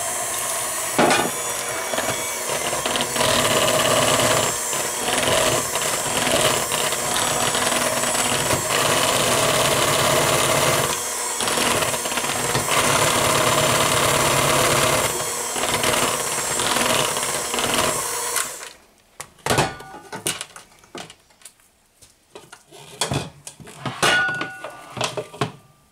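Electric hand mixer running steadily, its beaters working through thick cake batter, switched off about 18 seconds in. After it stops, a few scattered knocks and clatters.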